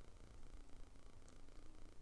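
Near silence: faint room tone with a low hum, and one faint tick a little past halfway.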